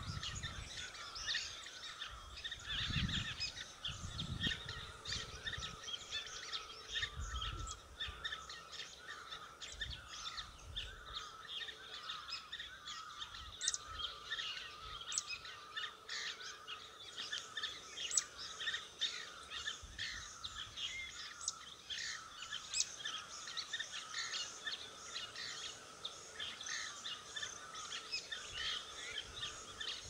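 Dense, continuous chirping and twittering of small birds, with a few low thumps in the first several seconds and a faint steady hum underneath.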